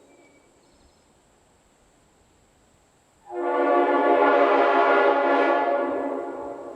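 Multi-chime locomotive air horn blown in one held blast that starts sharply about three seconds in, sounds for about three seconds as a chord, and fades away. The tail of the previous blast dies out at the start.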